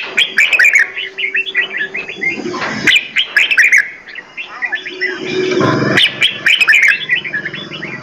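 Several caged songbirds chirping and trilling over one another in quick, overlapping short notes. A low steady tone sounds under the chirping at the start and again just past the middle.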